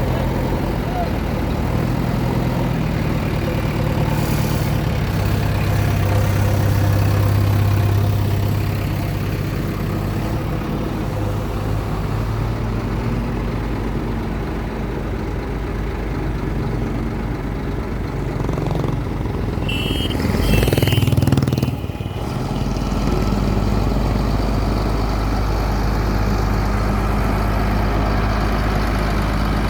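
Tata Hitachi digger's diesel engine running steadily while working, swelling now and then under load. Two short high beeps come about two-thirds through, followed by a brief loud surge, after which the engine settles back to a steady deep drone.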